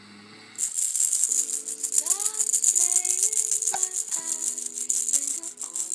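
A rattle shaken quickly and continuously, starting about half a second in and stopping near the end, over a few low held notes that change pitch now and then.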